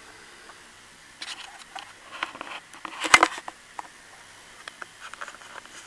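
Handling noise of a handheld camcorder being moved: rustles and small clicks, with one sharp knock about three seconds in and a few light ticks near the end, over faint steady hiss.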